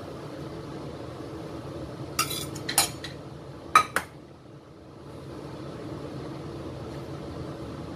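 A pan of broth boiling steadily, with four sharp metal clinks of a utensil against cookware between about two and four seconds in.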